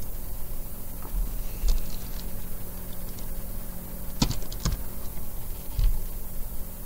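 Computer keyboard and mouse clicks. A few soft clicks come in the first two seconds, then a quick run of about five keystrokes a little past halfway as a short password is typed into an admin prompt, and one more click near the end. A low steady hum runs underneath.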